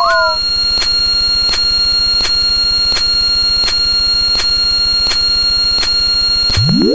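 Layered electronic sound effects: a dense, loud mix of steady high tones over a low buzz, with a click repeating about every three-quarters of a second and a quick rising swoop near the end.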